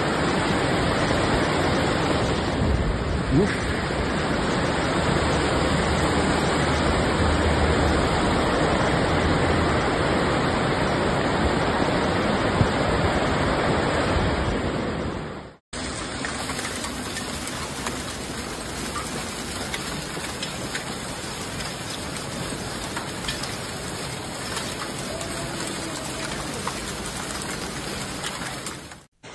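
Flash-flood torrent of muddy water, with wind on the microphone: a loud, steady rushing. About halfway it cuts off suddenly and gives way to a quieter, steady downpour falling at night.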